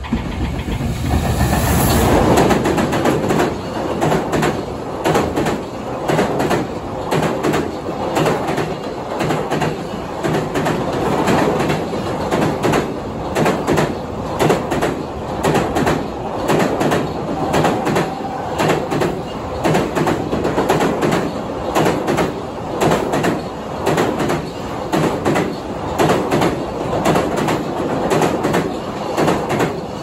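Container freight train hauled by an EF210 electric locomotive passing close by, loudest a couple of seconds in, then the long string of container flatcars clattering past with a steady clickety-clack of wheels over the rail joints. The noise falls away as the last wagons pass at the end.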